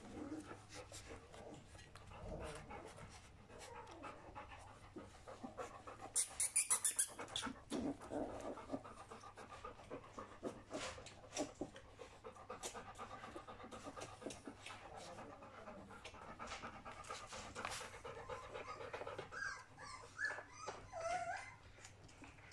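Golden retriever mother panting while her three-week-old puppies nurse and scramble around her, with small snuffling and sucking noises and a brief loud rustle about six seconds in. Near the end the puppies give a few short squeaks.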